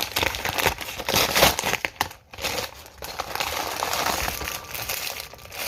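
A package being handled and opened by hand, its packaging rustling unevenly, with a brief pause about two seconds in.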